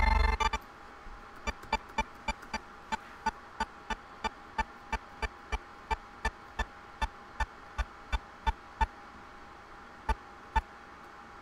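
A loud burst that breaks off within the first half second, then a long run of sharp, evenly spaced computer clicks, about three a second, ending with two last clicks near the end, over a faint steady hum.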